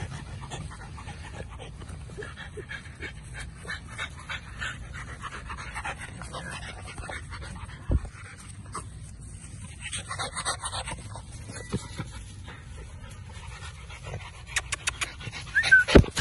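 American bully puppy panting, with a cluster of loud knocks near the end as the puppy's face bumps against the phone.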